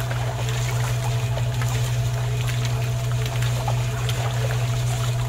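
A small motor running steadily with a low, even hum, with faint scattered clicks over it.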